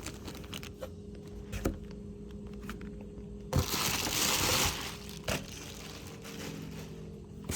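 Packaging rustled and handled by hand: a few light clicks and knocks, and a crinkling burst lasting about a second, a little past halfway through.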